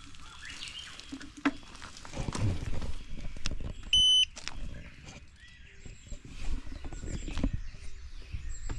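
A single short electronic beep, one steady high tone lasting about a third of a second, about four seconds in. Around it are scattered light clicks and knocks and some low rumbling.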